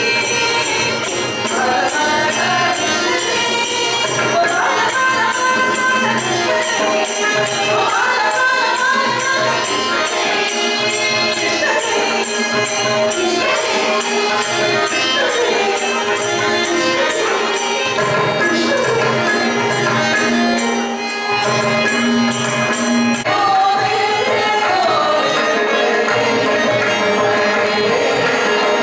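Carnatic devotional singing by women's voices, with a fast, even percussion beat that stops about three-quarters of the way through while the singing carries on.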